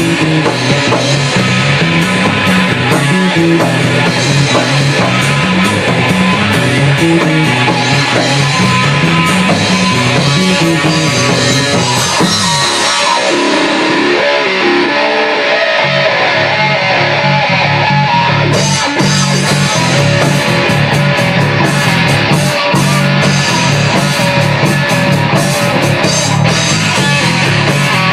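Instrumental rock band playing live: guitar over bass and drum kit. A little under halfway through, the low end drops out for a few seconds, leaving the guitar, and about two-thirds of the way through the full band with cymbal hits comes back in.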